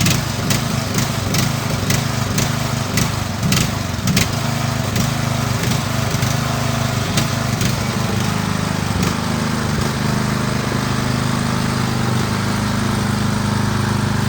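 Lawn mower engine running steadily, just after starting, with a series of sharp clicks and knocks over the first several seconds.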